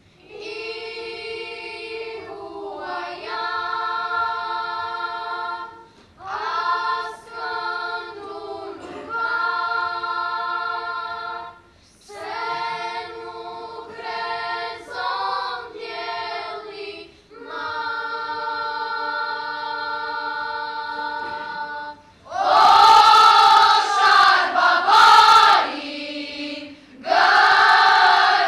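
A girls' choir singing in phrases separated by short pauses. Near the end the singing becomes much louder.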